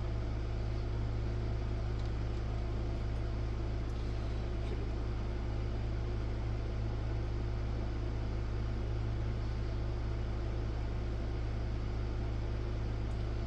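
Steady low hum with an even hiss underneath, unchanging throughout, with no distinct clicks or knocks.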